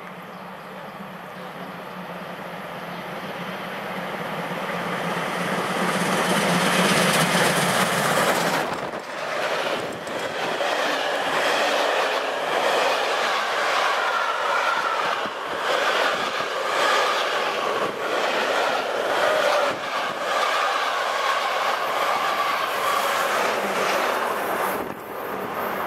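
Steam-hauled special train running through the station: it grows steadily louder over the first eight seconds as the locomotive approaches. Then a long rake of passenger coaches rolls past close by, its wheels clattering over the rail joints, until the sound drops away near the end.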